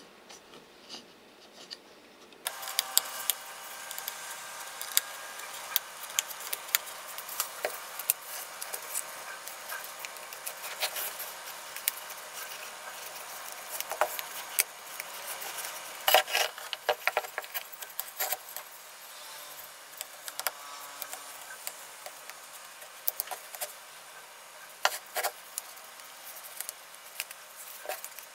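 Rubber tire being worked by hand onto the rim of a hammer-tone-painted wheel from a Porter-Cable 7724 portable band saw: close-up rubbing and scuffing with many small sharp clicks and taps. A steady faint hiss comes in about two and a half seconds in.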